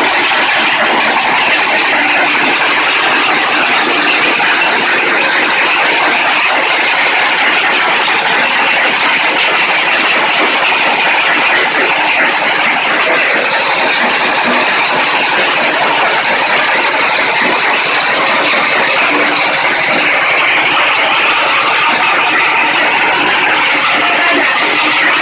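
Stone crusher machine running steadily, crushing rock into gravel: a loud, even, dense rattling noise.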